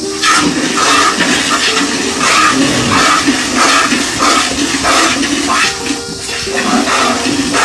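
Milk squirting in short, rhythmic spurts into a metal pail as a cow is milked by hand, with background music underneath.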